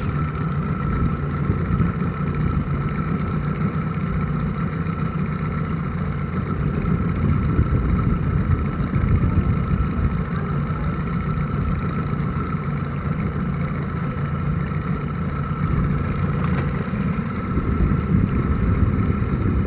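A boat's motor running steadily at low revs, a constant low drone with a steady whine over it.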